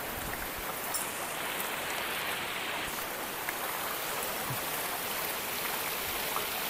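Water pouring steadily from an inlet into a concrete fish-farm channel, an even rushing noise.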